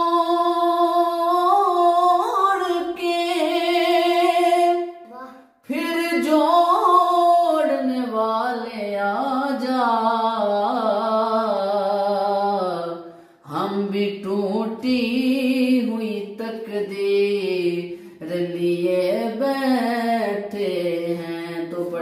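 A solo voice singing a naat unaccompanied, in long, drawn-out ornamented phrases, with two short pauses for breath about five and a half seconds in and again near fourteen seconds.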